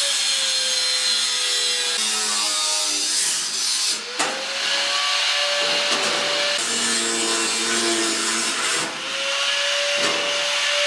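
Angle grinder running against sheet steel. Its motor pitch sags as the disc bites into the metal and climbs back when the load comes off, twice, over a steady hiss of grinding.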